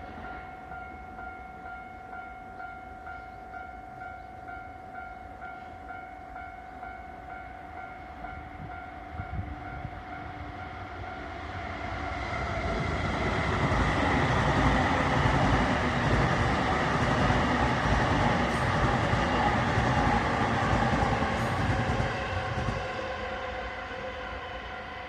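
Japanese level-crossing warning bell ringing in a steady repeating ding, while a train approaches and passes over the crossing. The train's rumble builds from about halfway through, stays loudest for several seconds, then fades near the end.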